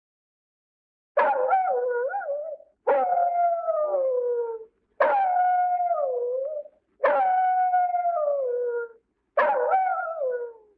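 A dog howling five times, each howl about two seconds long, starting sharply and sliding down in pitch.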